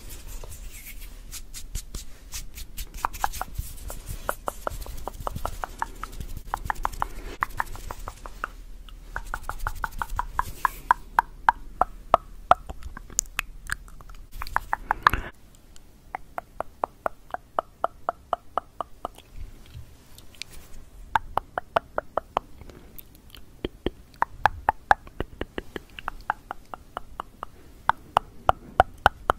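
Rapid tongue clicking close to the microphone, in fast runs of crisp, pitched clicks, several a second, broken by short pauses.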